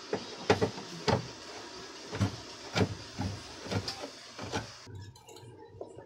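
Hand tool working the screws that hold a washing machine's gearbox, making a series of about ten sharp, irregular metal clicks and knocks that stop abruptly about five seconds in.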